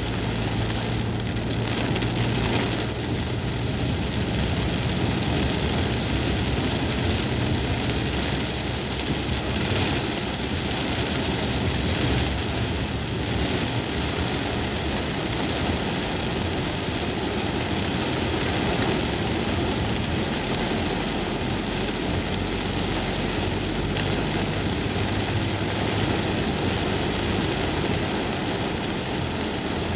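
Heavy rain beating on a car's roof and windshield, heard from inside the cabin as a steady hiss, over the low hum of the car's engine and tyres on the wet road.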